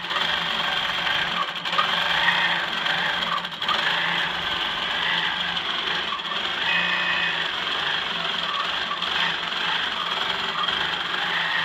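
BlockRockIt quilting machine running steadily, its needle stitching through the quilt as it is guided across the fabric.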